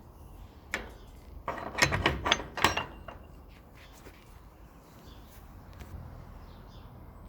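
A door being shut: a click, then a quick cluster of knocks and rattles of the door and its latch over about a second and a half.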